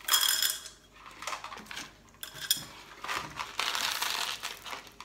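Small white decorative pebbles rattling and clinking as they are poured from a plastic tub into a glass terrarium bowl, in a few separate pours: one right at the start, short ones after, and a longer one near the end.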